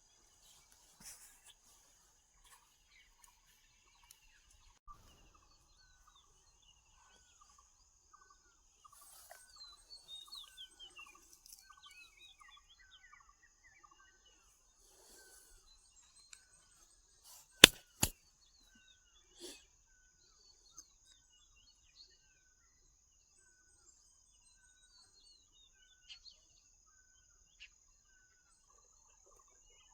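Birds calling: one repeats a short chirp about once a second, and another gives a falling run of notes. Over a steady high insect drone, two sharp clicks a little past halfway are the loudest sounds.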